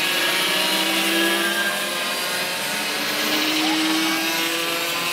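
Several racing go-kart engines running at high revs as the karts pass, their separate notes at different pitches each rising and falling slowly.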